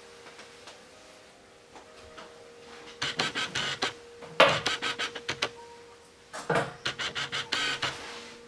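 Grooming scissors snipping through a dog's coat in quick runs of several snips a second, starting about three seconds in, with short pauses between runs.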